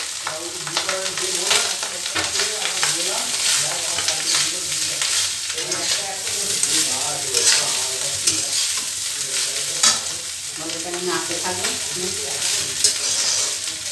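Metal spatula stirring and tossing cooked rice in a metal kadai of hot ghee, with many quick scrapes and clicks against the pan over a light steady sizzle.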